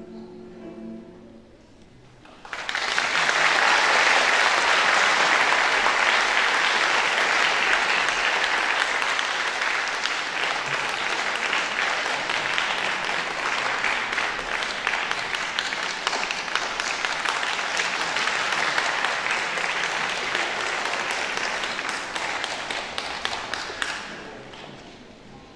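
The last held chord of a piano and folk-instrument orchestra dies away, then the audience starts applauding suddenly and loudly, steady clapping that keeps on for about twenty seconds and tapers off near the end.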